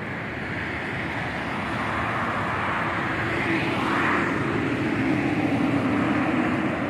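Road traffic passing close, a motorcycle and then a bus, growing louder over the last few seconds, mixed with the engine drone of a low-flying twin-turboprop airliner.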